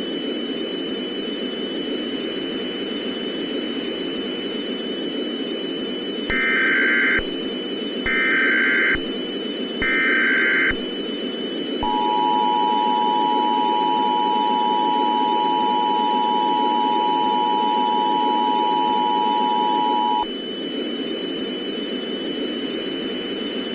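Emergency Alert System tones over a steady radio static hiss with a faint high whine. About six seconds in come three short buzzing bursts of the SAME digital header, sent three times to encode the alert. They are followed by about eight seconds of the steady two-tone 853/960 Hz attention signal, which cuts off suddenly.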